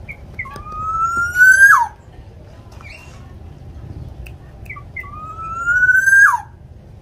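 Black-naped oriole calling: two long calls that rise slowly in pitch for about a second and then drop sharply. Each is led in by a few short high notes.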